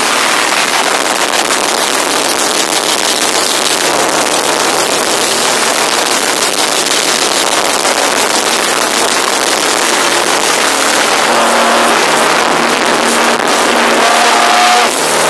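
Live concert crowd cheering, loud and distorted through a compact camera's overloaded microphone, with a few held shouts rising above it near the end.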